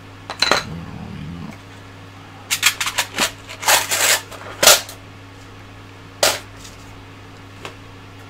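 Hand tools such as screwdrivers clattering against a plastic tool tray as they are picked up and put back: a click just after the start, a quick run of sharp clicks and knocks from about two and a half to five seconds in, and one more knock about six seconds in. A steady low hum runs underneath.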